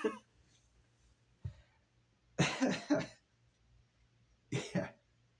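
A man coughing: two coughs about two and a half seconds in, then two more near the end.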